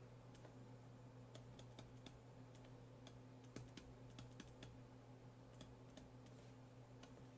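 Faint, irregular clicks of a stylus tip tapping on a digital writing surface as words are handwritten, over a low steady electrical hum.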